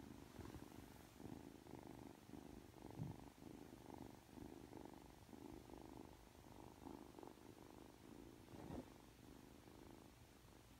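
Ragdoll kitten purring softly while being stroked, in regular pulses. A couple of soft low bumps, about three seconds in and near the end.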